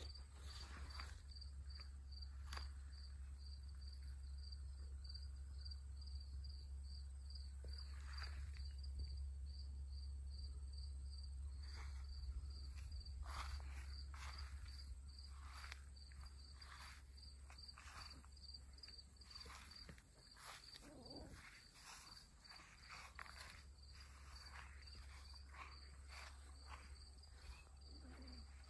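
A cricket chirping steadily, short high chirps at about two a second, over a faint low rumble. From about halfway, soft rustling steps in the grass join in.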